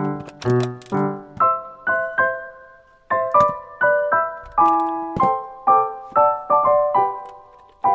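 Background piano music: a light melody of separate notes played at a moderate pace.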